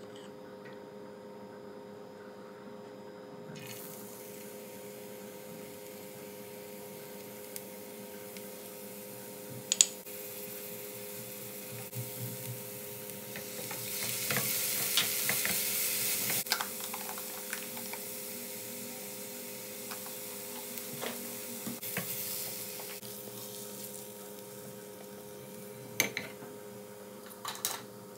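Chopped onion, ginger, garlic and chilli sizzling in sesame oil in a frying pan, stirred with a wooden spatula that knocks now and then against the pan. The sizzle starts a few seconds in and is loudest around the middle, and a single sharp knock about ten seconds in stands out.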